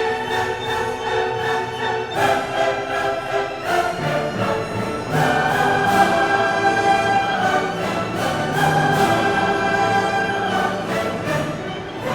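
Background orchestral music with sustained string chords.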